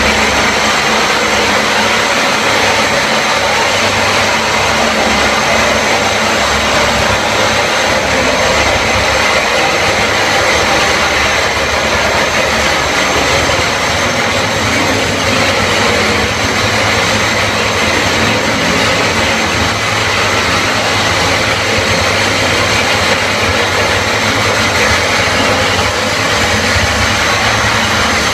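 ROLL RO-3000 single-disc grinding machine with a diamond disc running steadily as it grinds a screed floor, with its dust extractor drawing off the dust.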